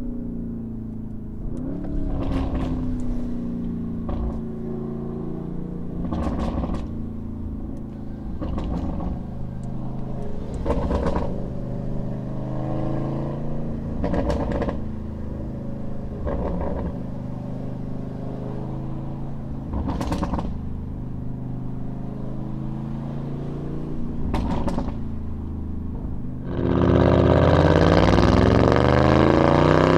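Lamborghini Urus twin-turbo V8 with a Capristo catback exhaust running at low revs at a steady pace, with brief sharp cracks every couple of seconds. About 27 s in it turns much louder with the revs climbing under acceleration.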